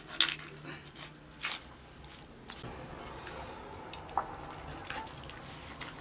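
Light metallic clinks and jingles, spaced a second or so apart, as a kitchen knife cuts raw meat held over a steel bowl.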